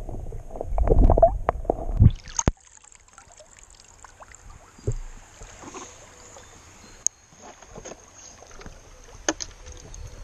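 Muffled underwater rumble and knocks from a camera held under the river as a hand moves through the water among the rocks. About two seconds in it cuts to a much quieter river scene with scattered faint splashes and a thin steady high hiss.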